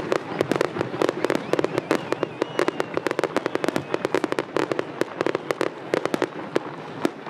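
Fireworks display: a rapid, dense volley of aerial shell bursts and crackling bangs, several a second, thinning out near the end.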